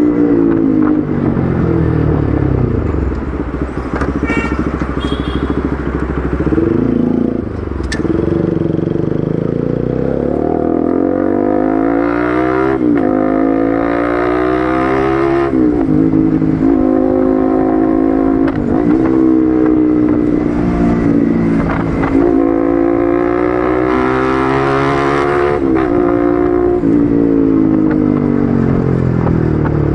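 Bajaj Pulsar RS200's single-cylinder engine running through an Akrapovic exhaust while riding: revs climb and drop sharply again and again as it pulls through the gears, then fall away as it slows near the end. A sharp click is heard about eight seconds in.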